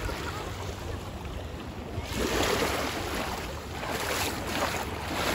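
Small waves lapping and washing over a shallow sandy lake shore, a steady rushing wash that swells louder about two seconds in, over a low wind rumble on the microphone.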